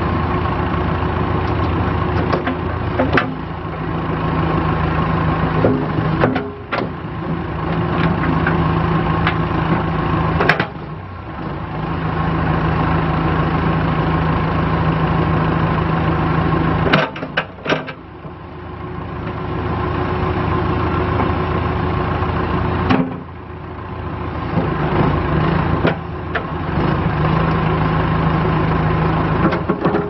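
John Deere 310SE backhoe loader's diesel engine running while the backhoe boom and bucket are worked, the engine note rising and dipping several times as the hydraulics take and release load. A few sharp knocks come from the backhoe as it moves.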